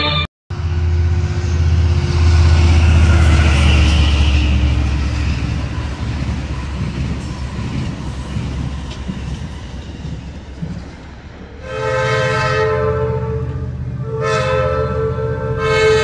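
Sounder commuter train passing, a steady low rumble of the locomotive and rail cars. About twelve seconds in, the locomotive's multi-tone horn sounds a long blast, then a short one, then another long one near the end, the warning pattern for a grade crossing.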